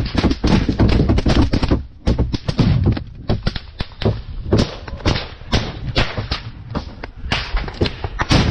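Small-arms fire cracking in rapid, close shots, dense for the first two seconds and then more scattered. Under it are thumps and scraping from the helmet-mounted camera as its wearer moves through the trench.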